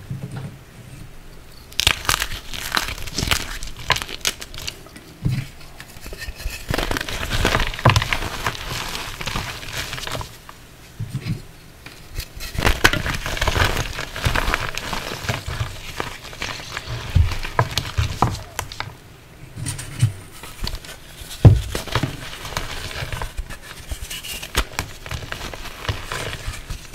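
Water-soaked blocks of reformed gym chalk crushed and crumbled by hand over a tub of water: a crackly, sizzling crunch in bursts, with lulls between handfuls and a few soft thuds as lumps drop.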